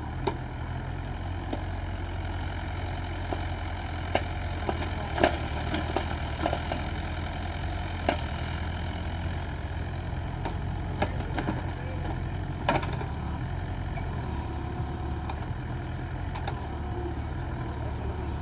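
Excavator's diesel engine running steadily, with a handful of sharp knocks scattered through.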